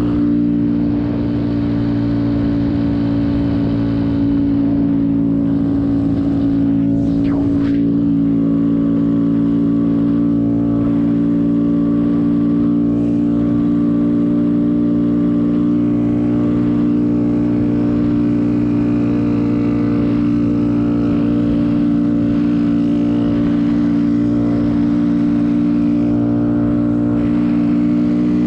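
Small 125 cc single-cylinder mini motorcycle engine running at a steady cruising speed, holding one even note throughout.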